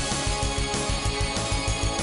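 Background music with a fast, steady bass beat, about four to five pulses a second.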